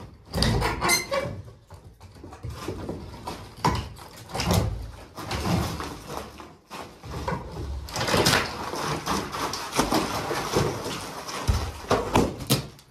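Wooden plank-and-lath partition wall being torn down by hand: boards creaking, cracking and scraping as they are pulled loose, with irregular knocks and clatter as wood and plaster debris land on the rubble-strewn floor.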